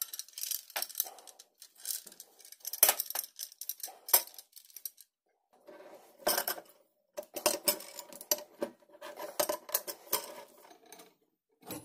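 Brass fittings and copper pipes clinking and knocking together as a brass union nut is threaded on by hand and then gripped with a steel adjustable wrench: a run of sharp metallic clicks, with a faint metallic ring under the handling in the second half.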